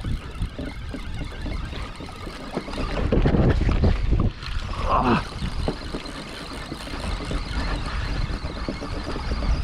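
Wind buffeting the microphone and seawater slapping and splashing against a kayak's hull, with irregular knocks, busiest in the middle.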